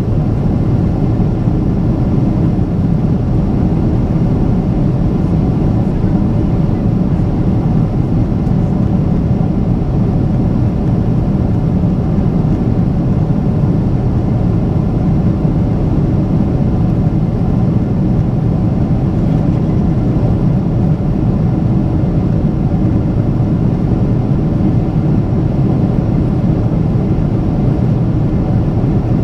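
Steady, loud engine and airflow noise inside the cabin of a Boeing 777-300ER, from its GE90-115B turbofans, even in level throughout.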